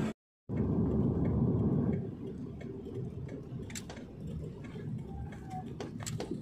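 Road and engine noise inside a car cabin at highway speed, cut out briefly near the start. About two seconds in it drops to a quieter cabin hum with scattered light ticks and clicks as the car moves slowly.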